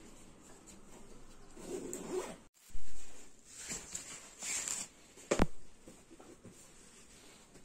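A zipper being pulled in several short scraping strokes, followed by a single sharp click about five seconds in.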